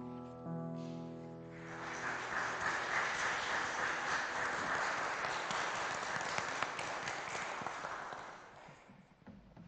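The last sustained piano chord of a song dies away, then a small congregation applauds for about seven seconds, the clapping fading out near the end.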